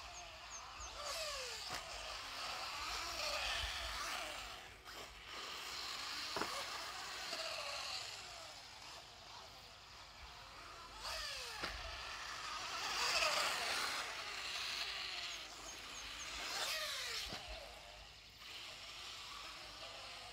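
Team Associated B5M 1/10-scale electric RC buggy being driven on a dirt track. Its motor whines, rising and falling with the throttle, and the whine drops in pitch each time the buggy passes, about four times.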